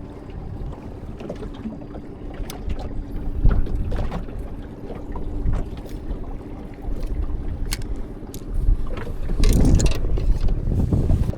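Wind gusting on the microphone aboard a small fishing boat on a lake, over a faint steady hum, with a few sharp clicks.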